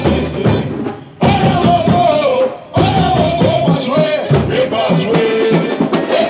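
Samba-enredo sung live by a man into a microphone and played through a sound truck's speakers, over a deep, regular drum beat. The music drops out briefly twice, about a second in and again after about two and a half seconds.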